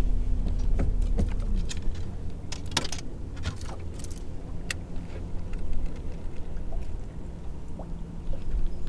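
Electric bow-mounted trolling motor humming on a bass boat: the hum drops away about a second and a half in and comes back at a lower pitch near the end. Under it runs a low steady rumble, with scattered sharp clicks and ticks.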